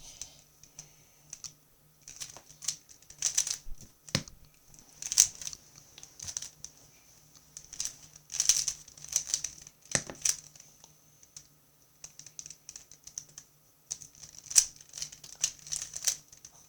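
Plastic 3x3 speed cube being turned by hand: quick bursts of clicking layer turns with short pauses between them, as in a speedsolve. Two duller knocks stand out, about four and ten seconds in.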